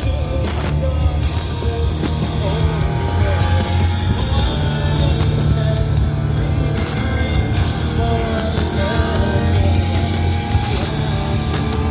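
Rock music with a singing voice and guitar, playing loud and steady.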